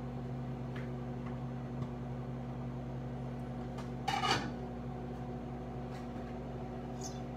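Microwave oven running with a steady hum while it heats food, with one brief louder noise about four seconds in.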